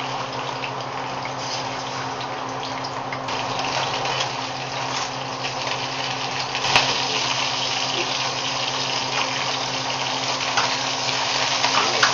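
Italian sausages sizzling in a hot pan: a steady frying hiss that grows slightly louder, over a low steady hum, with one sharp click a little over halfway through.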